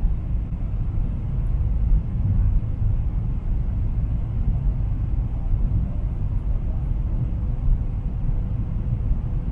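Steady low rumble of cabin noise inside a Boeing 777-300ER in flight, from its GE90-115B engines and the airflow, heard from a window seat beside the wing.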